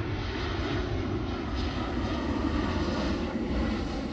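Boeing 737-800 on final approach with its landing gear down, its two CFM56-7B turbofan engines making a steady rushing noise that grows slowly louder as the aircraft comes overhead.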